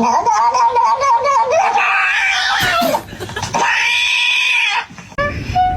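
A pet animal's long, wavering cries: one held for about three seconds and a shorter one after a pause, followed by a few brief higher notes near the end.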